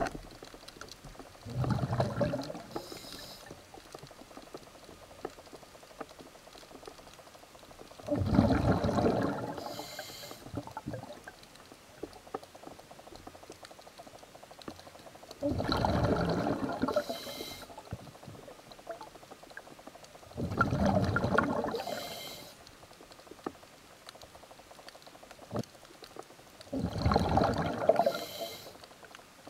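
A scuba diver breathing through a regulator underwater: five bursts of exhaled bubbles, each about two seconds long and ending in a brief higher hiss, one breath every six to seven seconds, with faint water hiss between them.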